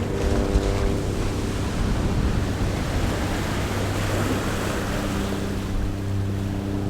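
Ocean waves rolling in, a wash of surf that swells through the middle and eases off, over soft sustained music tones that are clearest near the start and toward the end.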